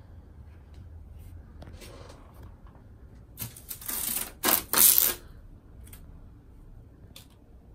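Masking tape being pulled off its roll in three quick, loud ripping pulls in the middle, with a few light handling clicks around them.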